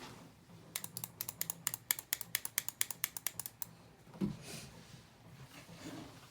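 Typing on an SK61 mechanical keyboard with lubed Gateron Brown tactile switches and pudding keycaps: a quick run of about twenty keystrokes, some six or seven a second, that stops shortly before four seconds in. A single dull thump follows just after.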